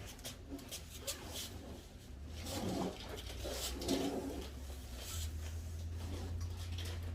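Scattered light knocks, clicks and rustles of packaging and parts being handled, over a low rumble that gets louder about two thirds of the way through.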